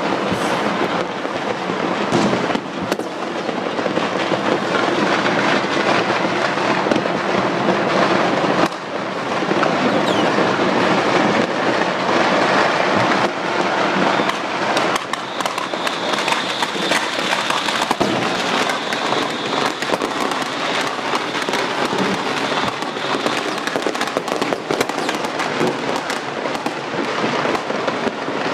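Fireworks and firecrackers going off all over a city at once: countless bangs and crackles overlapping into one unbroken din with no pause.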